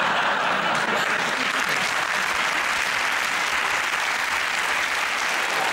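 Studio audience applauding steadily with dense, even clapping.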